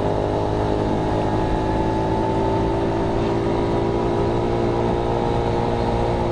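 Honda Monkey's small 49cc single-cylinder four-stroke engine running at a steady cruising speed, its note holding level over a steady hiss of road and wind noise.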